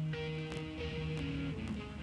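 Background music led by guitar, with held notes that change every half second or so.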